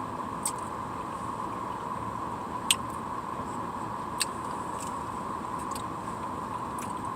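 A steady, even background hum with a few short, sharp clicks over it; the loudest click comes a little under three seconds in.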